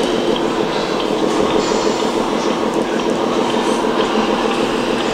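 Steady diesel-like engine rumble from radio-controlled scale trucks' sound units, mixed with the general noise of a busy hall.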